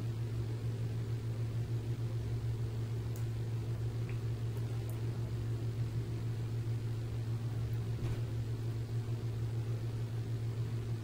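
Steady low hum of running equipment, unchanging throughout, with a few faint ticks.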